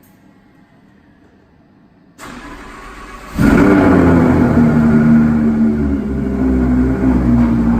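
Audi R8 V10 Spyder's 5.2-litre V10 being started: the starter cranks for about a second, the engine catches a little past the middle with a loud flare, then settles into a steady idle with the exhaust valves open. The uploader says it is idling with misfires.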